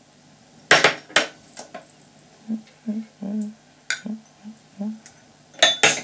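A metal spoon clinking and tapping against a stainless steel pot while cocoa powder is spooned into it, in a run of small knocks. Near the end a ceramic bowl is set down on the glass-ceramic cooktop with two sharp clacks.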